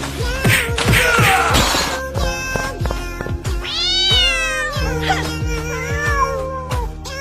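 A cat meowing over background music with a steady beat: one long meow that rises and falls in pitch near the middle, then a softer one just after.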